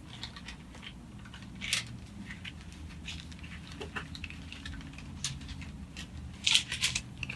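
Thin Bible pages being turned and handled: scattered light rustles and soft clicks, with a quicker, louder flurry of paper rustling near the end.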